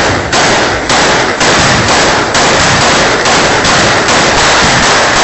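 Repeated gunshots from a repeater (pump-action shotgun) fired in celebration, about two shots a second. The recording is so loud that it is overloaded, and the shots blur into a continuous distorted din.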